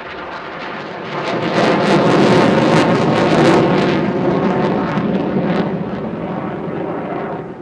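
RAF Eurofighter Typhoon's twin EJ200 turbofans roaring on afterburner, with a harsh crackle. The roar builds over the first two seconds, peaks, then slowly fades.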